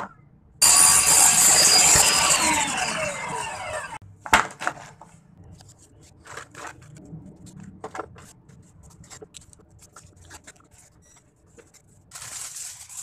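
A stationary power tool's motor running, then winding down over about three seconds with a falling whine. After that come scattered light taps, clicks and rustles of a plastic tub being handled, and a short burst of noise near the end.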